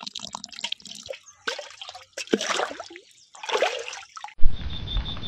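Water dripping and trickling onto plant leaves and soil, in irregular small splashes. About a second before the end it changes abruptly to a steady hiss with a fast, high-pitched pulsing.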